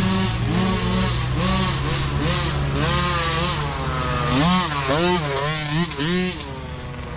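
Several kids' mini dirt bikes ridden along a dirt trail, their small engines revving up and down over and over as the riders work the throttle, one bike close by and others following. The revs rise and fall in quicker bursts over the second half.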